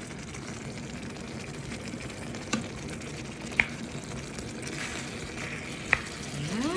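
Chicken pieces in a thick spice sauce sizzling in a wok as a spatula stirs them, with three sharp knocks of the spatula against the pan.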